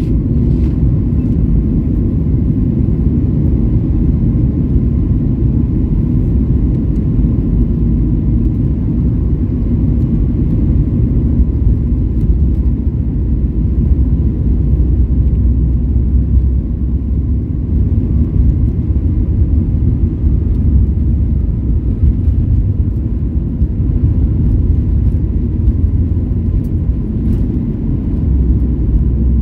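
Jet airliner cabin noise heard from inside: a loud, steady low rumble of engines and rolling wheels as the plane moves along the ground, with a faint steady whine.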